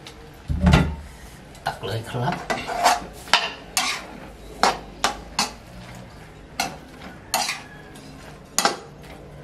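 Metal spatula scraping and clinking against a wok as stir-fried food is scooped out, in uneven separate strokes. There is a heavier thump about a second in.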